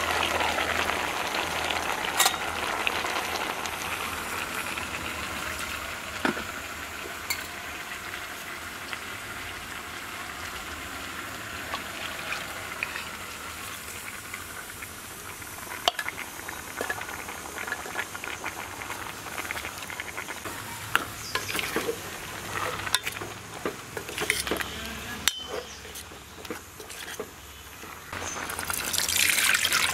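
A steel ladle stirring a pot of vegetable curry freshly mixed with ground coconut paste, with scattered sharp clinks of metal on the steel pot over a steady sizzling simmer. A louder rush of noise starts near the end.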